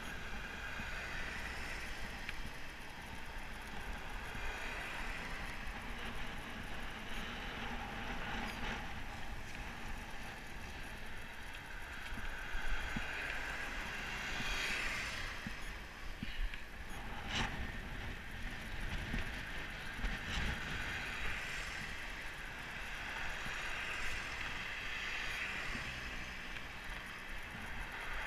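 Wind rushing over a helmet-mounted camera while riding a road bike on a street, with tyre noise and cars passing close alongside, swelling as they go by.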